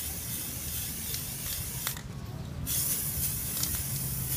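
Aerosol spray paint can hissing as paint is sprayed onto a bottle, breaking off for about half a second two seconds in and then resuming.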